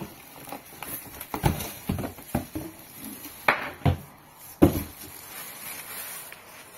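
Handling an air fryer in its plastic bag: the plastic rustles and crinkles among a string of irregular knocks and bumps against cardboard and a table, the loudest bump about two-thirds of the way in.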